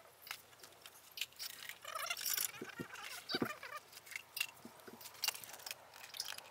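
Faint, scattered clinks and rattles of small metal hand tools and bits being handled.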